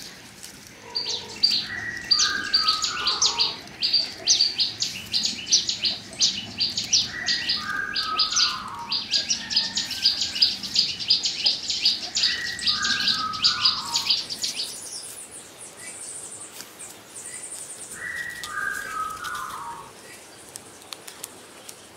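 Birds chirping: quick high chirps come several to a second until about two-thirds through, then stop. A lower falling call repeats about every five seconds, and a thin high trill comes in briefly after the chirps end.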